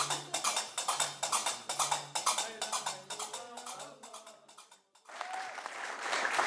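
Live ensemble music: rhythmic hand-held percussion clicks over a repeating low plucked-string figure, fading out about five seconds in. Applause starts just after.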